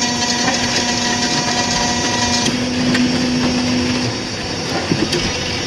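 Electric motor of an interlocking brick-making machine running with a steady whine and a few clicks. Some of its tones drop out about two and a half seconds in and the rest about four seconds in.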